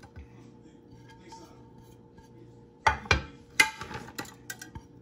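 Kitchen handling noise: a quick run of sharp knocks and clinks, as of utensils or containers being handled, starting about three seconds in and lasting about a second and a half, over a faint steady hum.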